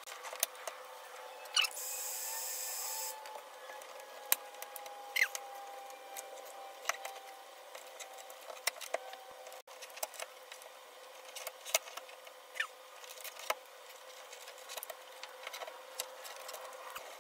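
Hands picking and rubbing at the adhesive-backed lettering and masking tape on a car's hood: scattered small clicks and scratches, with a brief hiss about two seconds in, over a faint steady hum.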